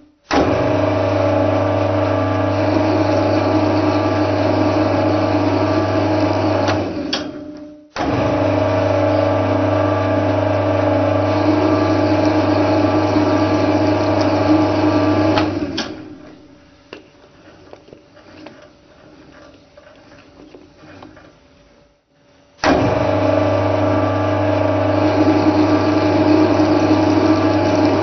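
Centre lathe running under power with a steady hum and gear whine as a pointed tool cuts grooves into a rotating metal bar. The sound breaks off sharply about eight seconds in, then fades away past the middle to a faint low noise for several seconds before coming back abruptly.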